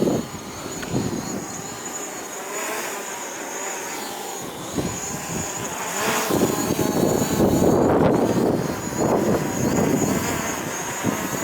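DJI Mavic Pro drone's propellers whirring with a thin, steady high whine while it fights gusty wind, the wind buffeting the microphone in heavy gusts.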